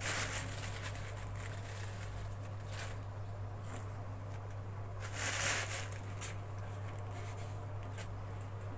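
Soft rustle of a spoonful of dry powder tipped onto gram flour in a bowl about five seconds in, over a steady low hum.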